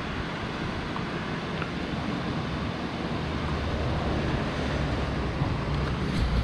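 Steady outdoor background noise: a low, fluctuating rumble under an even hiss, with no distinct events.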